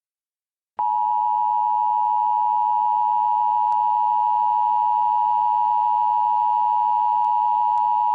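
Emergency Alert System attention tone: a single loud, steady electronic tone that starts abruptly under a second in and holds unchanged, over faint static hiss. It signals that an emergency alert voice message is about to follow.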